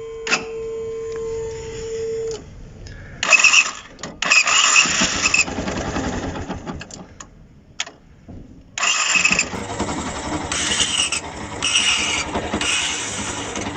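A motorcycle electric starter motor cranking in several harsh, gritty bursts, then the engine starts and runs. The noise comes from a starter whose carbon brushes are completely worn out; it still turns the engine.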